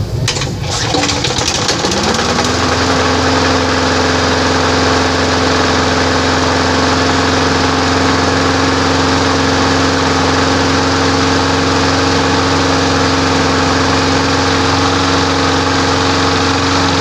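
Craftsman walk-behind lawn mower engine running just after starting: uneven for the first couple of seconds, then its speed picks up and it runs steady. The engine is worn from being run without an air filter, which lets dirt in like sand poured into the crankcase, and it is smoking heavily as it runs.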